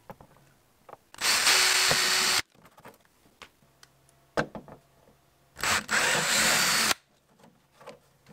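Hand-held power drill boring through a plastic fuel tank in two short bursts of about a second each: a 3 mm pilot hole, then a 7 mm hole. A few light handling knocks fall between them.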